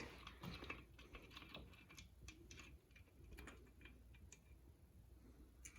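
Faint, scattered metallic clicks and taps as a connecting rod cap is worked off the crankshaft of a 4.6L DOHC V8, with near silence between them.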